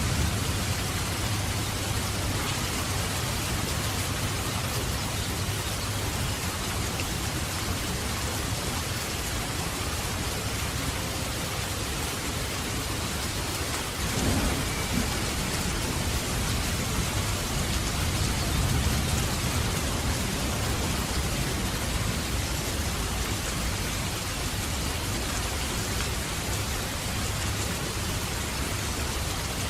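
Steady heavy rain with low rolling thunder, the rumble swelling near the start and again about two-thirds of the way through.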